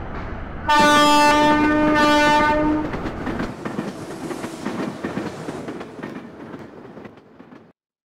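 A train horn sounds one long blast of about two seconds. Then the rumble and clatter of passing rail coaches fades away and cuts off suddenly just before the end.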